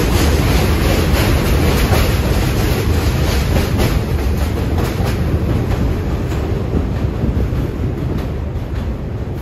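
R46 subway train running past on elevated track and moving away: a heavy rumble with the wheels clacking over rail joints, fading over the last few seconds.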